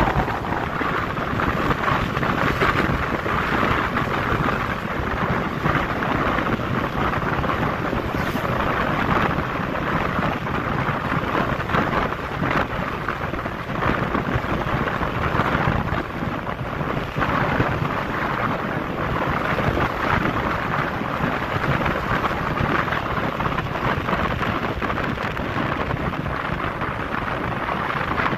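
Steady rush of wind on the microphone, with road noise from a motorcycle riding at speed.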